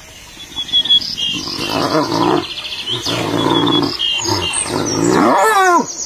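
Spotted hyenas growling in a run of loud calls that rise and fall, starting about a second in, with one call gliding down near the end. Birds chirp faintly above them.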